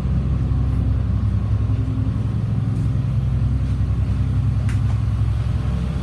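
2004 Blue Bird All American school bus engine running steadily at idle, held at a high idle that the owner says it has been stuck on the whole time, with a couple of faint clicks.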